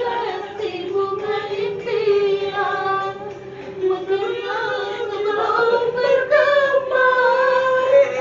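A high singing voice holding long, drawn-out notes, dipping lower about halfway through and then rising to hold a higher note.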